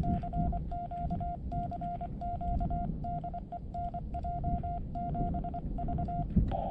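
Morse code sidetone from a ham radio transceiver: one steady beep keyed on and off in dits and dahs from a paddle as the operator sends a CW call.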